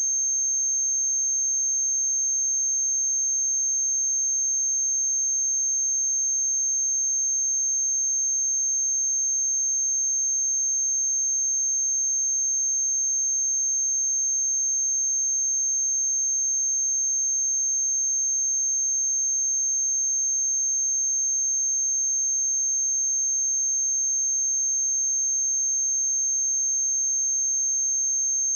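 A steady, unbroken 6366 Hz sine-wave test tone: one pure high-pitched tone at constant loudness.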